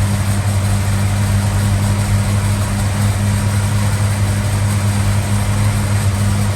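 Valiant Charger engine idling steadily, running on fresh oil just after an oil change.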